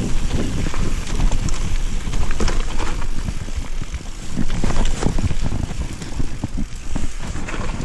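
Cube Stereo 160 full-suspension mountain bike riding fast down a dirt singletrack: a continuous rumble of tyres on the ground, with irregular rattles and knocks as the bike runs over roots and stones.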